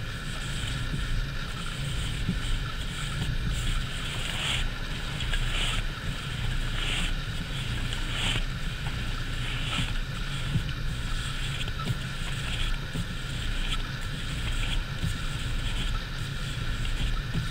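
Car engine idling steadily, heard inside the cabin, while the steering wheel is turned from lock to lock to circulate fresh power-steering fluid. Short hissing swishes come every second or so as the wheel is turned.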